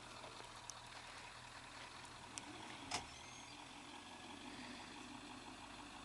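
UPS delivery truck's engine running at a steady, faint idle, with a few light clicks and one sharp knock about three seconds in.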